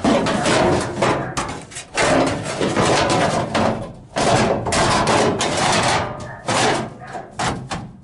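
New steel floor pan being worked down into a 1966 Ford F100 cab floor: sheet metal scraping, rattling and banging against the old floor in a run of irregular loud bursts.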